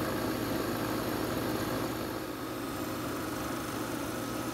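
Small wood lathe running steadily while a skew chisel shaves a spinning bloodwood pen blank, an even hum with a light hiss of cutting.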